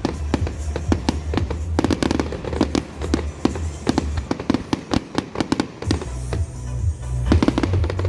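Fireworks going off in quick succession, a dense run of sharp crackles and bangs, with music playing underneath.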